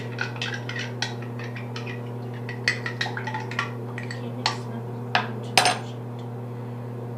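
A utensil stirring glue-and-water slime mixture in a container, knocking and clinking against its sides at an irregular pace, with the sharpest clinks around the middle and about five and a half seconds in.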